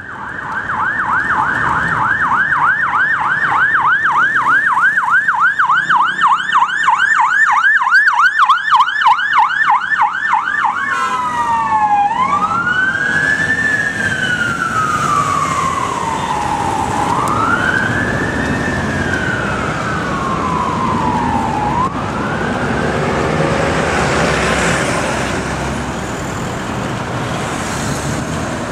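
Siren of a Magen David Adom ambulance, first a fast yelp sweeping up and down about three times a second. About eleven seconds in it switches to a slow wail, each cycle rising quickly and falling over several seconds, and fades away near the end as the ambulance passes.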